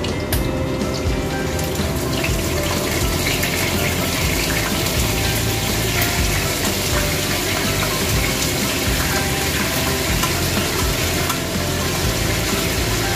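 Hot oil sizzling in a frying pan with small barracuda frying in it: a dense, steady hiss that thickens about two seconds in. Light background music plays underneath.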